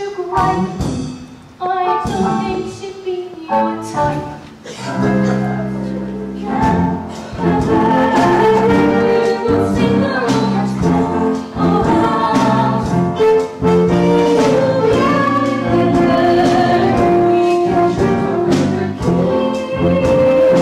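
Music from a stage musical's band or orchestra: an instrumental passage of held chords, with singing voices mixed in.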